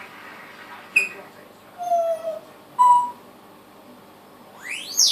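Pet parrot whistling and calling in short separate bursts: a brief high chirp, a low whistle that slides slightly down, a short steady whistle, then a fast upward-sweeping whistle near the end.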